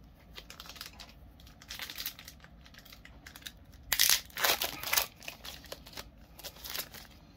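Foil wrapper of a Pokémon TCG Obsidian Flames booster pack crinkling in the hands. About four seconds in there are louder bursts of crinkling and tearing as the pack is torn open.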